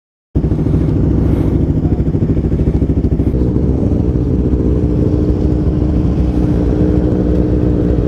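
Honda CBR300R's single-cylinder engine idling steadily, heard close up from the saddle. Its note shifts slightly about three seconds in.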